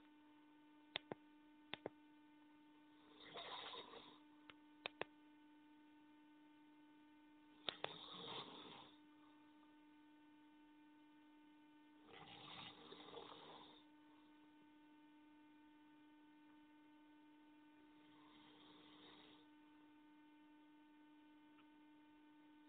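A person snoring faintly, with a noisy snore about every four to five seconds, five in all. A steady electrical hum runs under it, and a few sharp clicks fall in the first eight seconds.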